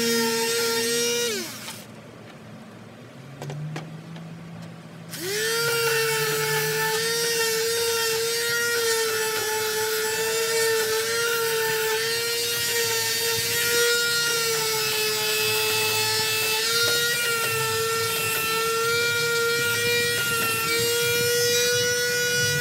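Electric detail sander sanding a wooden rocking chair. Its motor whines, winds down and stops about a second in, then after a few seconds of quiet starts again with a rising whine and runs steadily at speed.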